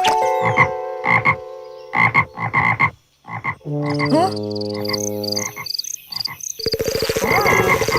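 A rapid jumble of cartoon sound effects: short clicks and pitched honks, stepped tones with a couple of rising slides, then from about two-thirds in a fast, buzzing, croaking rattle.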